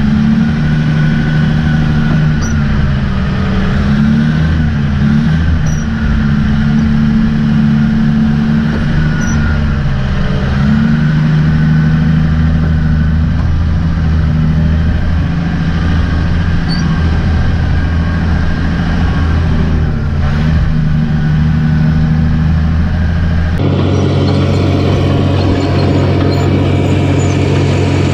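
Diesel engine of a CAT 615C elevator scraper running under load, heard from inside the cab, its pitch sagging and recovering a few times. About 23 seconds in, the sound switches abruptly to a tracked crawler machine's diesel engine running.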